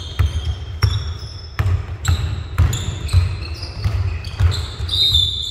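Basketball bouncing repeatedly on the court during play, a string of sharp irregular thuds, with high sneaker squeaks, the strongest about five seconds in.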